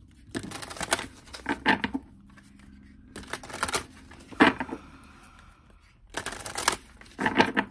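Deck of oracle cards being shuffled by hand: about six short bursts of cards rustling and slapping against one another, with brief pauses between them.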